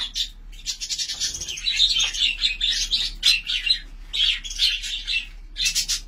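A flock of budgerigars chattering, a dense run of high twittering and chirps with a few short gaps.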